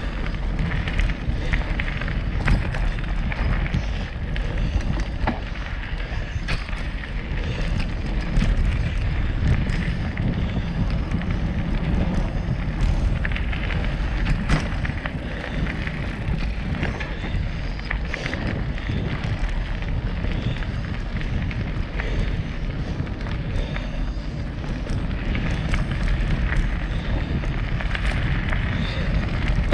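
Mountain bike ridden fast along a dirt singletrack: steady wind rumble on the microphone, with tyre noise and frequent short clicks and rattles from the bike over the trail.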